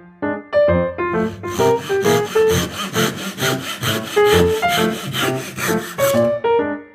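Hand saw cutting through wood in fast, even strokes, starting about a second and a half in and stopping near the end, over light background music.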